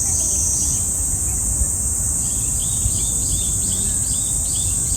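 A chorus of cicadas making a steady, shrill drone. Faint short chirps repeat over it from about halfway on.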